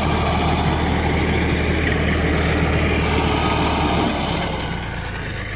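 Tractor engine running at idle, a steady low hum that drops a little in level about four seconds in.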